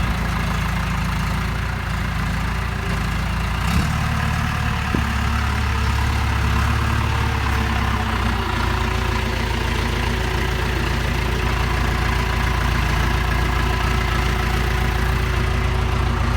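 Tractor engine running steadily at idle, with two short knocks about four and five seconds in.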